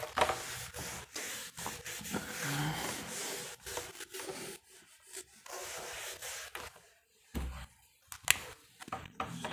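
Irregular rubbing and scraping with scattered clicks, a short low thump about seven and a half seconds in, and a sharp click just after it.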